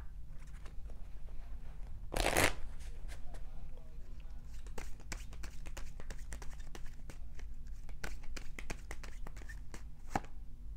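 A tarot card deck being shuffled by hand: a brief louder rush about two seconds in, then a long run of quick, crisp card snaps and flicks as the cards are worked through.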